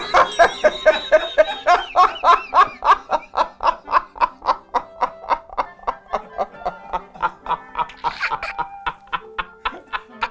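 A person laughing hard in a long run of rapid, evenly spaced "ha" bursts, about four a second, loudest in the first few seconds and thinning out later.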